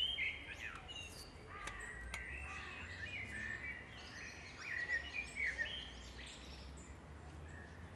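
Birds chirping and calling, many short overlapping calls over a faint low background hum.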